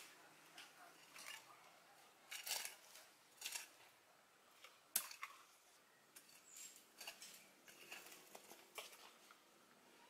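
Bent metal rod scraping and poking through loose, dry garden soil: quiet, irregular scratchy scrapes, with louder ones about two and a half and three and a half seconds in and a sharp click about five seconds in.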